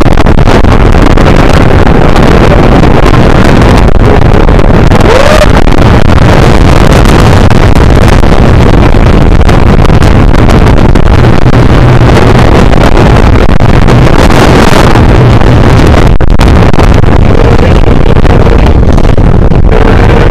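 Wind blasting the microphone over the rumble of the California Screamin' steel roller coaster train running along its track, loud enough to overload the recording.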